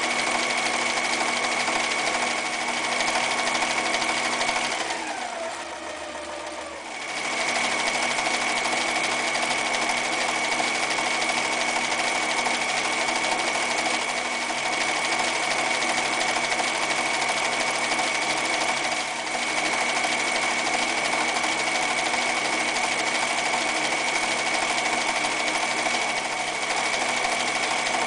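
Frister + Rossmann 1080 electric sewing machine running at a steady speed, stitching zigzag and decorative stitches through fabric, with a steady high whine. About five seconds in it winds down, pitch falling, pauses briefly and starts sewing again about two seconds later.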